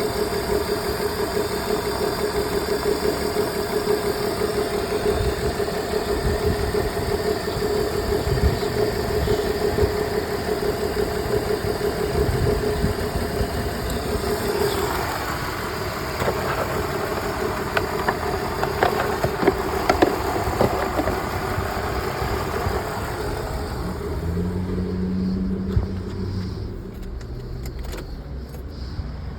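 BMW E46 engine idling with a misfire, with the check-engine light on: a steady drone carrying a steady whine that drops away about halfway through. Near the end the sound turns quieter and duller.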